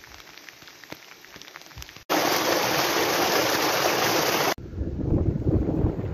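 Outdoor sound cut together in three parts: faint scattered ticks, then, about two seconds in, a small mountain stream rushing over rocks close to the microphone, loud and even, and from about four and a half seconds a low, gusting rumble of wind on the microphone.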